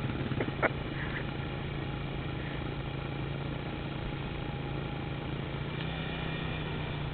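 Dirt bike engine idling steadily, with a few short sharp clicks in the first second.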